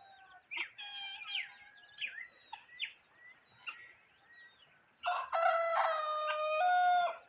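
Rooster crowing once, one long crow of about two seconds that starts about five seconds in and is the loudest sound. Before it come scattered short bird calls, over a steady high-pitched insect drone.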